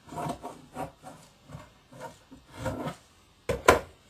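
Scissors snipping through shirt fabric in a series of short, rough cuts, then two sharp knocks near the end as the scissors are put down on the cutting table.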